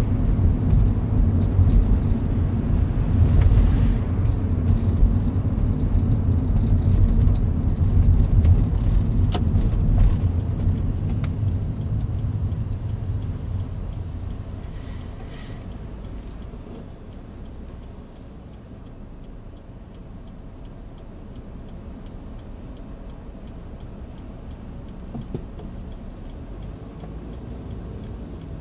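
Car driving, with its engine and road rumble heard from inside the cabin. The rumble fades about halfway through as the car slows to a stop in queueing traffic, then stays as a quieter steady idle.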